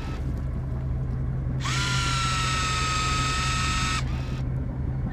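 Electric deep-drop fishing reel giving a steady high whine for about two seconds, starting abruptly about a second and a half in and cutting off sharply, as the weighted rig goes down. A steady low hum runs underneath.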